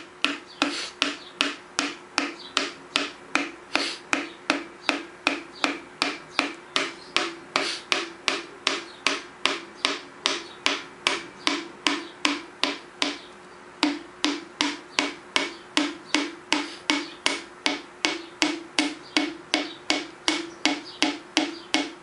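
Wooden hammer handle tapping the crown of a Wiseco forged piston, driving it through a ring compressor into a Nissan KA24DE cylinder bore. The light taps come steadily, about two or three a second, each with a brief ring, with one short pause a little past the middle. The piston goes down smoothly with no resistance, so no ring is catching.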